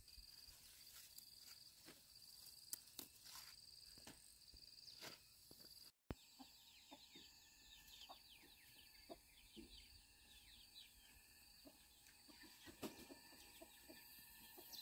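Faint farmyard sound of chickens clucking. A steady high tone runs through the first half, and after a brief dropout about six seconds in come many quick falling chirps.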